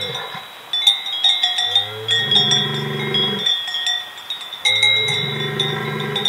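A Tarine bull bellowing in two long, low calls with a pause between, a show of displeasure at someone approaching his herd of cows. Cowbells clink throughout.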